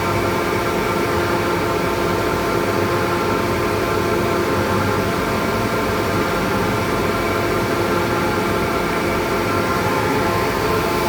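Levimatic 630 wide-belt sander with two sanding heads and an 11 kW main motor running steadily: an even motor hum and whine with a constant rush of belt and air noise.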